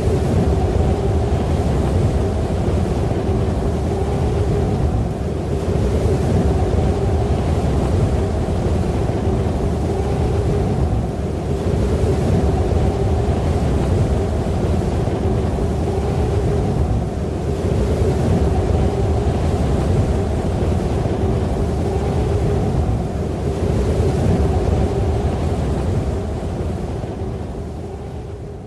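Blizzard wind howling steadily with a wavering low moan, rising and easing every few seconds, then fading out near the end.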